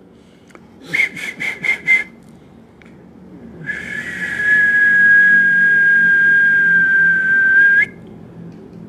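Whistling: five short high notes in quick succession, then one long held note with a breathy hiss that drops slightly in pitch just before it stops.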